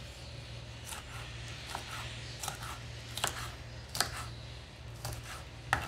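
Kitchen knife dicing green bell pepper on a wooden cutting board: short sharp taps of the blade hitting the board, about one a second, over a steady low hum.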